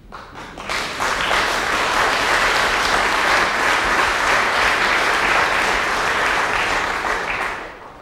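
Audience applauding. It swells up over the first second, holds steady, then dies away near the end.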